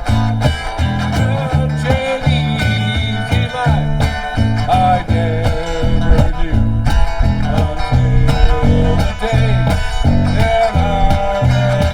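Live country-blues band playing an instrumental passage: an electric guitar lead with bent, sliding notes over a steady bass guitar line and kick drum beat.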